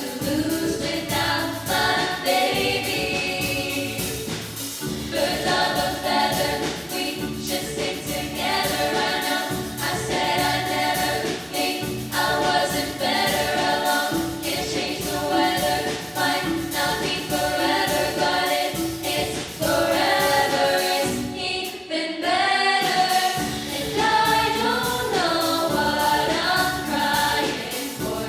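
Choir singing, with a brief break about three-quarters of the way through.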